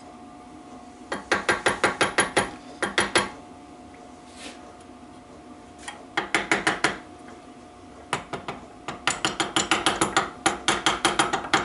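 Socket ratchet clicking in quick runs of about seven clicks a second, five runs in all, as the crankshaft bolts are wound into their cleaned threaded holes to check that they start cleanly.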